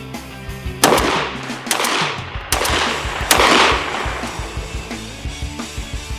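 Background music with a steady beat. Four loud sharp crashes with long fading tails come about a second apart in the first half.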